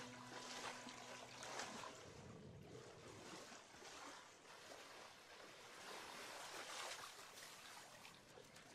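Faint splashing and lapping of shallow river water stirred by people wading, with irregular small splashes.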